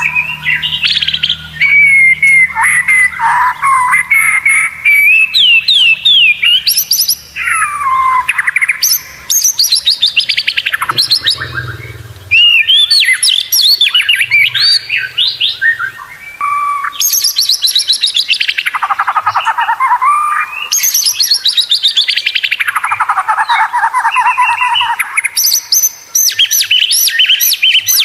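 White-rumped shama (murai batu) singing a loud, continuous and varied song. It mixes clear whistles and pitch glides with long runs of rapid chattering notes that sweep steadily downward in pitch.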